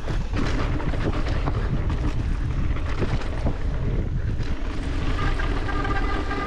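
Wind buffeting the microphone over a steady low rumble, with scattered rattles and knocks from a mountain bike riding down a trail. About five seconds in, a steady pitched buzz comes in.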